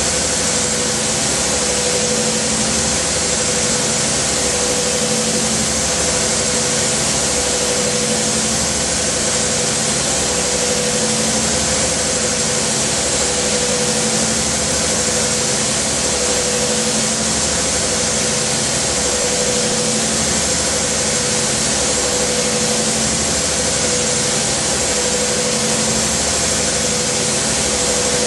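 End mill in a Kitamura Mycenter-4XiF vertical machining center high-feed milling a pocket in SKD11 tool steel hardened to HRC55: a steady hiss over a constant mid-pitched tone, with the low cutting noise swelling and easing about every two seconds as the tool sweeps back and forth.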